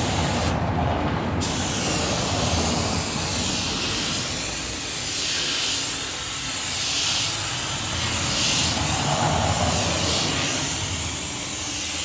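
Automotive paint spray gun hissing as it sprays a coat of white polyurethane paint. The hiss cuts out briefly about half a second in, then rises and falls with each sweep of the gun.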